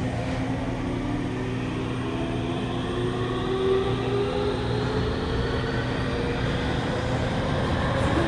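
Interior running sound of a Tokyu 3000 series train accelerating: the VVVF inverter and traction motors whine in several tones that rise steadily in pitch over the rumble of the wheels on the rails. The high keening noise is the mark of this set's original, un-updated VVVF inverter software.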